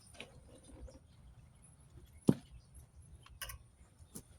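Scattered light clicks and knocks of parts and tools being handled while a carburetor intake boot is worked free, with one sharper knock about two seconds in.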